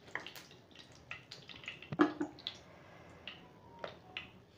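Freshly added oil heating in a frying pan, crackling with irregular sharp pops, one louder pop about two seconds in.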